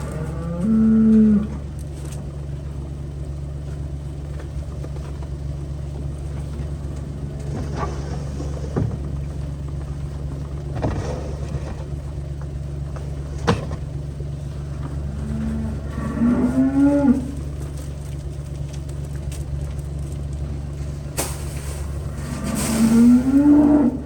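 Cattle mooing three times, once near the start, once past the middle and once at the end; each call lasts one to two seconds, and the last two rise in pitch. A steady low engine hum runs underneath.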